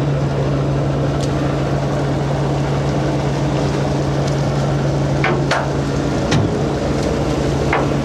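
Purse seiner's diesel engine running at a steady drone, with a few short high squeaks about five to eight seconds in.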